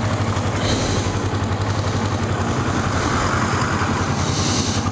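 Kawasaki Ninja 250 parallel-twin engine running at low speed in slow traffic, a steady hum with an even pulse. Wind rushes over the microphone briefly about a second in and again near the end.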